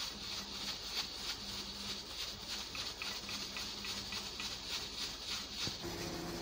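Sonex pressure cooker on the stove under full pressure, steam hissing out past its weighted valve in quick, even pulses. Near the end a steady low hum joins in.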